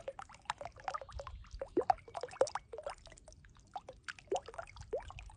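Water trickling and dripping: an irregular patter of many small plinks and bubbly drops, several rising quickly in pitch.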